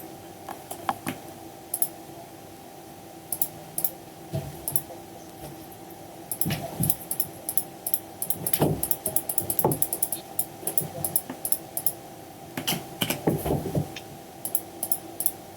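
Computer keyboard being typed on, sparse clicks at first, then quick runs of keystrokes, over a steady electrical hum.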